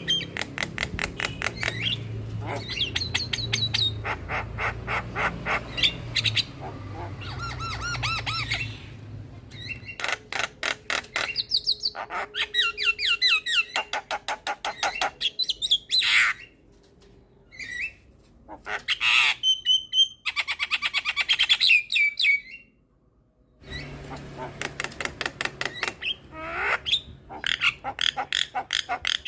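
Javan myna singing: fast runs of harsh, rapidly repeated chattering notes mixed with whistled phrases, broken by short pauses about halfway through and again near the last quarter.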